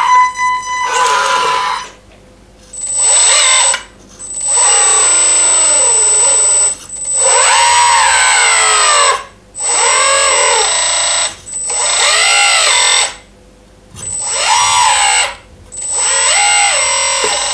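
Electric hydraulic pump of a 1:14 RC4WD Bobcat R350 hydraulic track loader whining in repeated bursts of one to two seconds with short pauses between. Its pitch rises and falls within each burst as the loader arms lift and the bucket tilts.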